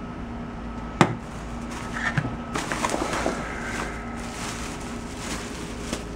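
A sharp plastic click about a second in, then a thin plastic bag crinkling and rustling as it is handled, over a faint steady hum.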